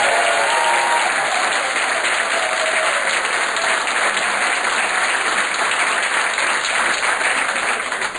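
Theatre audience applauding steadily, with a few held organ tones dying away in about the first second.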